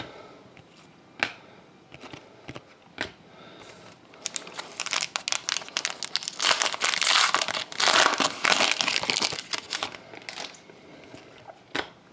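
Trading-card pack's foil wrapper crinkling as it is torn open and handled, a dense crackle lasting several seconds, after a couple of single clicks near the start.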